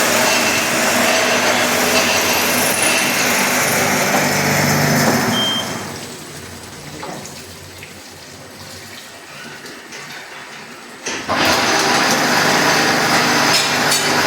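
Automatic drilling and tapping machine running loudly with a steady hum and hiss. It dies down about five seconds in and starts up again abruptly after about eleven seconds.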